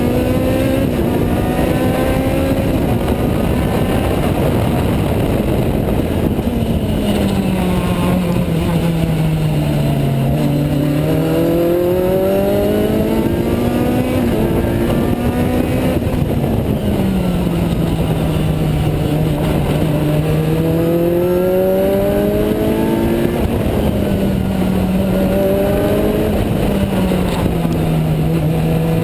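Juno SSE sports racer's Honda Type R four-cylinder engine at race pace, heard from the open cockpit: its pitch climbs in steps as it shifts up the gears, then falls as the car slows for corners, several times over. A steady rush of wind and road noise sits underneath.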